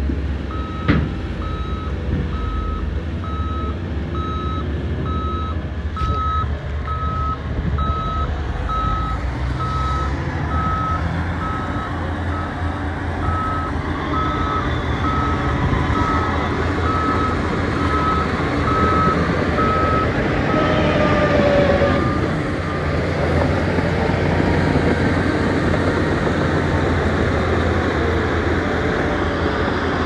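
Diesel engines of SHANTUI bulldozers and a tipping dump truck running with a steady low drone. A reversing alarm beeps in an even series that stops about two-thirds of the way through. There is a single sharp knock about a second in.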